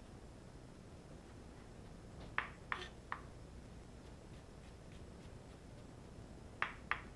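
Chef's knife knocking on a cutting board while slicing ginger into thin strips: three sharp knocks about two and a half seconds in, then two more near the end.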